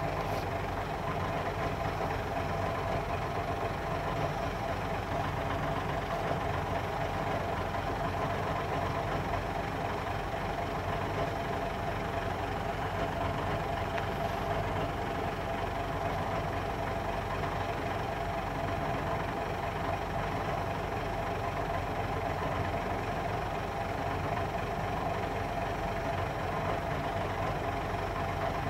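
Diesel engine of a railway engineering train idling steadily, a constant drone with a steady hum above it.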